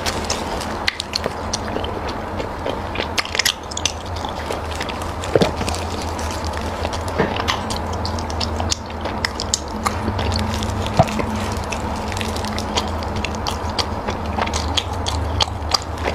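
Close-miked chewing and biting of food: irregular wet clicks and soft crunches from the mouth, over a steady low hum.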